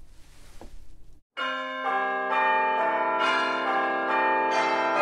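Bell tones struck one after another, each ringing on so that they pile up into a dense chord, starting about a second in after a moment of faint hiss.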